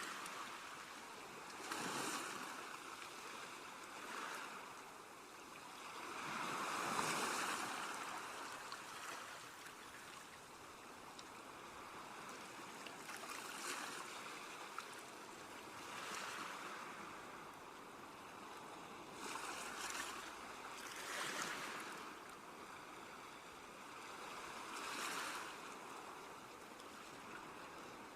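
Sea waves washing onto a shore, each wave swelling and receding every few seconds over a continuous surf hiss.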